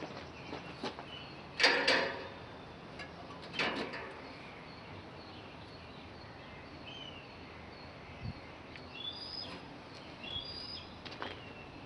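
Two short bursts of knocking and clattering about two seconds apart, from hands-on work fitting a belt on a corn picker. Small birds chirp repeatedly through the rest.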